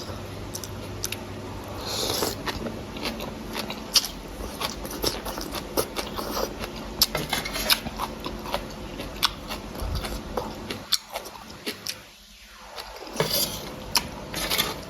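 Close-up eating sounds: chewing and biting on noodle soup, with many small sharp clicks and wet mouth noises.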